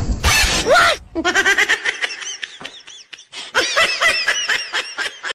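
A short rush of noise, then about four seconds of rapid, high-pitched laughter in quick repeated pulses.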